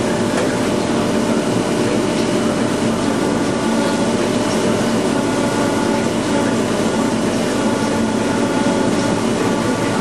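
DKP6 double-blade circular sawmill running: a steady mechanical hum with several held tones that does not change in level.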